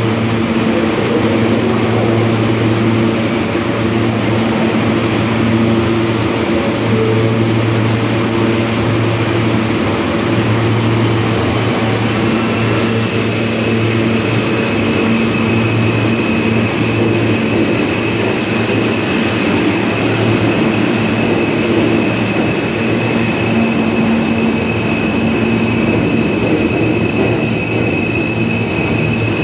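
An R160A New York City subway train pulling out of an underground station and running past: a steady loud rumble and hum, with a high steady whine coming in about halfway through and holding.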